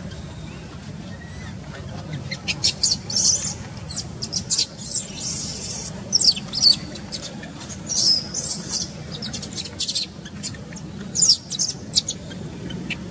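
Newborn macaque squealing: many short, high-pitched squeaks and shrill cries in clusters. They start a couple of seconds in and run until near the end.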